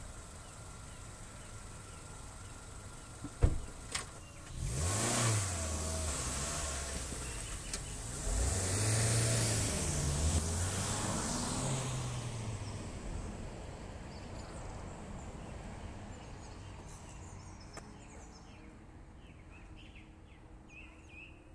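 A sharp knock, then the Kia Soul's engine starts, revs and the car pulls away, its sound swelling as it passes and then fading into the distance. Faint bird chirps near the end.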